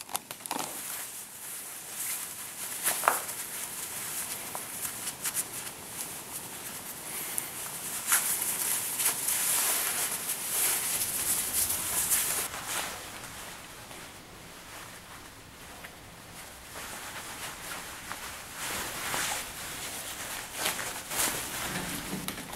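Necktie being tied around a shirt collar: cloth swishing, sliding and rustling close to the microphone, with a few short taps, loudest about eight to twelve seconds in.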